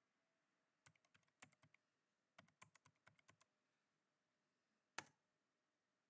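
Faint computer keyboard typing: two short runs of keystrokes, then a single louder key press about five seconds in, the Enter key running a ping command.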